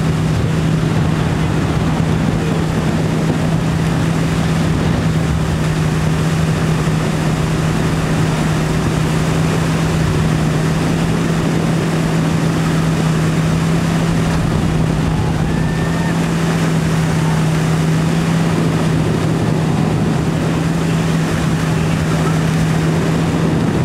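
Tow boat's engine running at a steady pace with an unchanging drone, over the rush of water and wind noise.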